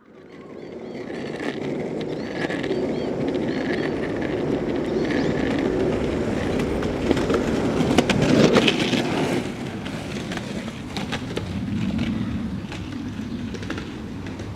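Wheels rolling over rough ground: a steady rumble with scattered rattling clicks that swells to its loudest about eight seconds in, then eases. Repeated short, high chirps sound over it in the first few seconds.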